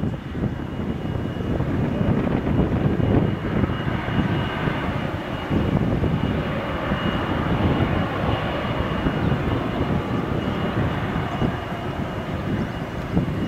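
Airbus A330-300's twin Rolls-Royce Trent turbofan engines running steadily as the airliner moves slowly along the runway: a deep rumble with a thin, steady high whine on top.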